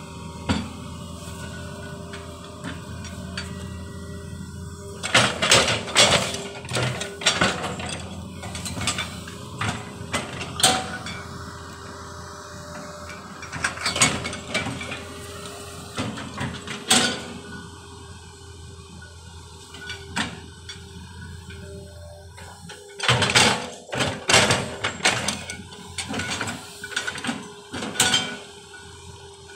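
Hydraulic excavator working: its engine runs steadily under a constant hum, broken by repeated bursts of loud metallic clanking and rattling, in clusters several seconds apart.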